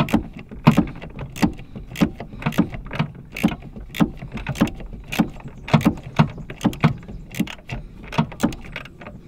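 Ratchet spanner being worked to tighten the ABS bracket bolts, a sharp click with a short knock at each stroke, about two a second.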